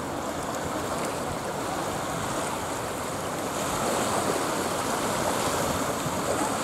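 Steady outdoor rushing noise, growing a little louder about halfway through, with no distinct tone or knock in it.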